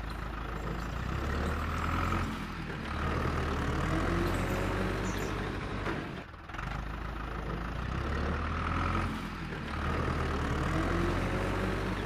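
Heavy vehicle engine running steadily with a low rumble. It drops out briefly about six seconds in.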